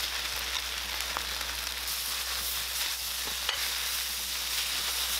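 Shrimp, rice noodles and egg for pad thai sizzling as they fry in a hot wok: a steady hiss, with a couple of brief clicks.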